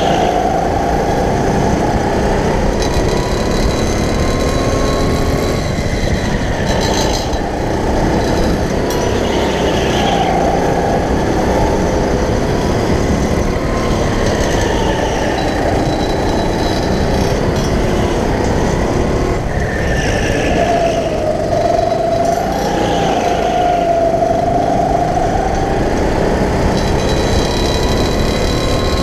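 Go-kart's motor running under way, heard from on board the kart, with its pitch rising and falling as the kart speeds up and slows through the corners.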